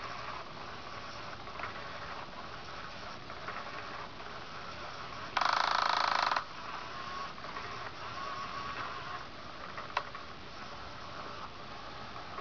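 Battery-powered Undercover Mouse cat toy running, its motor driving the wand under the nylon cover with a steady mechanical hiss. About five seconds in, a much louder rasping burst lasts about a second and stops sharply; a single sharp click comes later.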